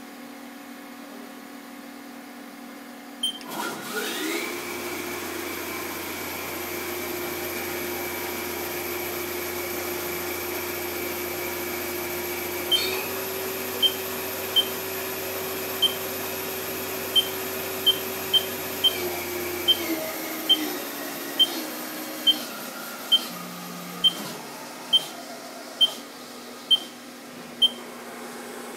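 Haas SL-30 CNC lathe spindle starting about three seconds in on an M03 S1000 command, running unloaded with a steady whine and low hum, then winding down in steps and stopping a few seconds past the middle. Short sharp beeps repeat about once a second through the second half.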